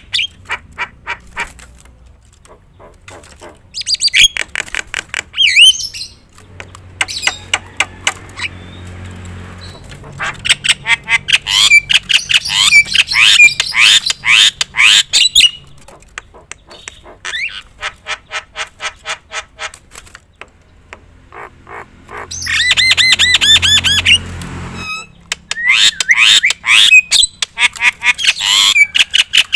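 Javan myna (jalak kebo) singing loudly in long bouts of harsh squawks, rapid clicking trills and curving chirps, broken by short pauses.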